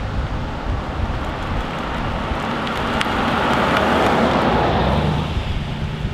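A 1960s American convertible drives close past, its engine and tyre noise swelling to a peak about four seconds in and then fading as it moves away. Wind rumbles on the microphone throughout.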